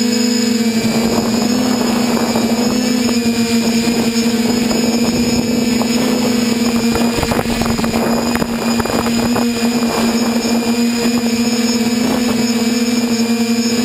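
A TBS Discovery quadcopter's brushless motors and propellers whining at a steady pitch as it hovers, heard from the camera on its frame. From about a second in to about ten seconds, gusts of rushing wind noise lie over the motor sound.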